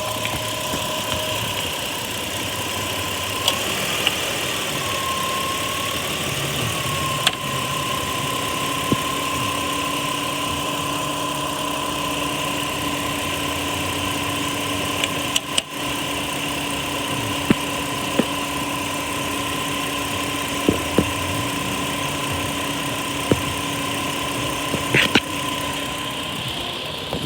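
Kia Rondo engine idling with a bad AC compressor: a steady whine over the running engine, with irregular sharp clicks and knocks every second or two.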